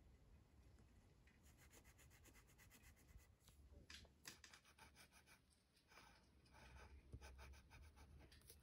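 Faint scratching of a graphite pencil on paper in short, repeated strokes as a drawing is shaded, with a couple of small taps.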